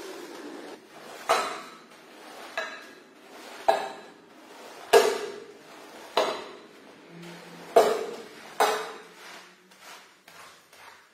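A squeegee scraping soapy water out of a wet shag rug: about ten wet strokes, each starting sharply and fading, roughly a second apart, growing quicker and fainter near the end. A steady machine noise from a rotary floor scrubber fills the first second.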